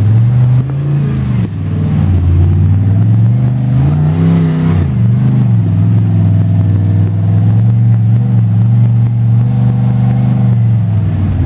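Rock crawler's engine running under load as it climbs a steep slickrock ledge, with a short rev about four seconds in that rises and falls, then holding a steady note.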